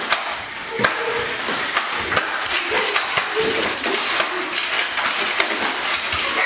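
Nerf blaster fight: an irregular run of sharp clicks and knocks from toy foam-dart blasters firing and darts striking furniture and the tile floor, with brief voices in between.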